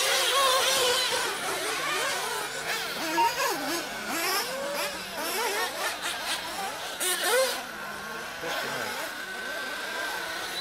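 Several 1/8-scale nitro off-road RC cars racing, their small two-stroke glow engines revving up and down in overlapping rising and falling whines, loudest about three and seven seconds in.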